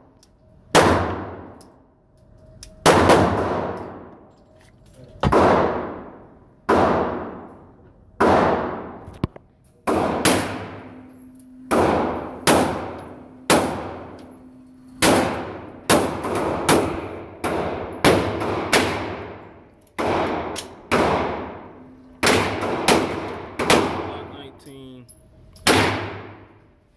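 Glock 19 9 mm pistol firing steel-cased ammunition on an indoor range: about twenty shots, one every second or so and a little quicker in the second half, each ringing off into a long echo.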